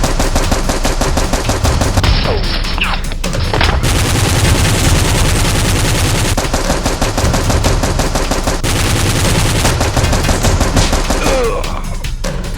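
Rapid automatic gunfire, many shots a second in long unbroken volleys.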